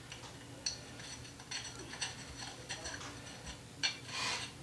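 Scattered light metallic clicks and ticks of hand tools and parts being handled, with a brief rustle about four seconds in.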